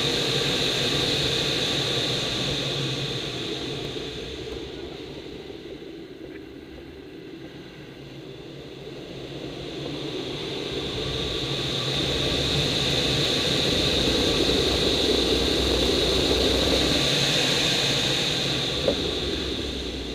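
Air rushing over a glider's canopy during aerobatic manoeuvres, with no engine. The rush is loud at first, falls away about six seconds in as speed bleeds off, swells again from about eleven seconds and fades near the end.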